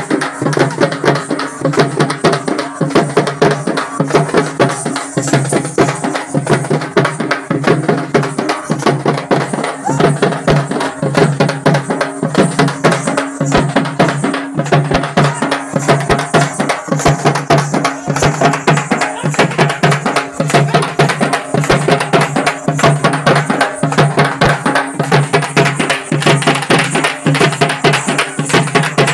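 Loud, fast drumming in a steady driving rhythm, with rapid strikes packed closely together throughout.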